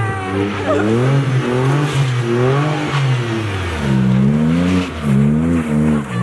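Car engine revving up and down again and again while the car spins donuts in snow, its pitch rising and falling about once a second.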